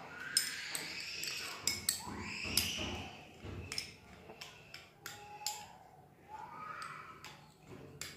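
Metal spoons clicking and scraping against small glass bowls while thick homemade slime is stirred, with short irregular clinks throughout. A few faint sliding voice-like sounds come in between.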